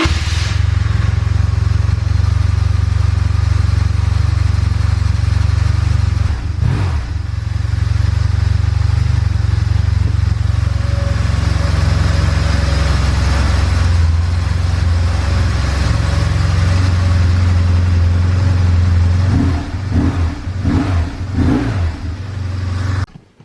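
2002 BMW R1150GS Adventure's boxer twin engine running through its stock exhaust with the catalytic converter. The engine note is loud and steady and turns uneven for a few seconds near the end.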